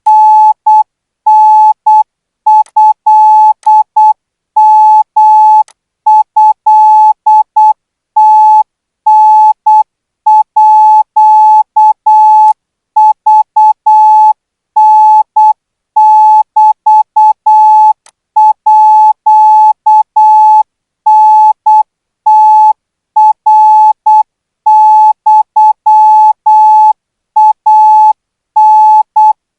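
Morse code practice tone: one steady beep pitch keyed on and off in short dots and longer dashes, grouped into characters with short gaps between them. It is Thai Morse code sent at 12 words a minute.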